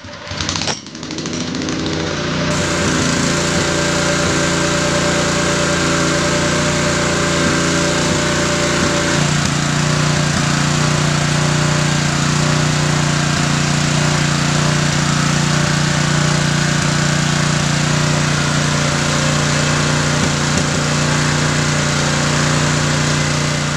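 Honda GX160 single-cylinder four-stroke engine on a water pump starting up and running steadily, showing it now starts after the no-start fault was fixed. About nine seconds in its note changes, settling into a lower, stronger hum.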